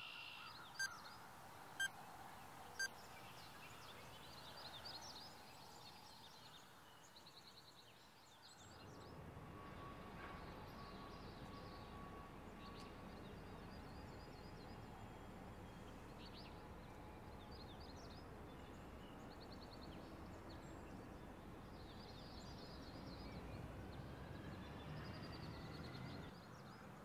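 Four short electronic beeps about a second apart at the start, then faint outdoor ambience: a steady low hum of background noise with small birds chirping now and then.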